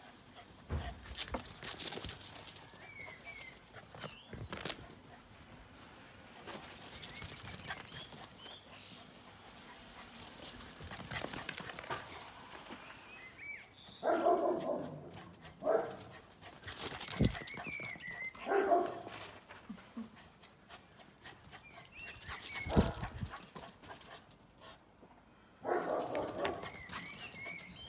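Bichon Frise puppy barking in short bursts, several times over, with knocks and rustling around it.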